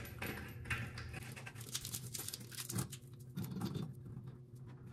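Soft, irregular small clicks and scrapes of a flexible sink supply line and its compression nut being handled and threaded onto an angle stop by hand.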